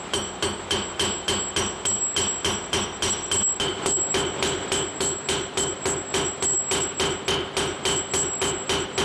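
Millstone being dressed with a steel pick: rapid, even strikes on the stone, about three a second, each with a short metallic ring. The pick is cutting fine straight lines in the stone's face to break up the glaze that forms with use, so the stone grinds more aggressively.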